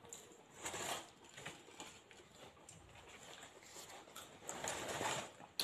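Soft chewing and mouth sounds from eating a shawarma wrap, with a brief rustle of its paper wrapper being handled about four and a half seconds in.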